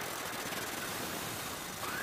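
Abrasive cut-off wheel grinding through a steel bar, a steady harsh hiss of cutting, with a short rising whine near the end.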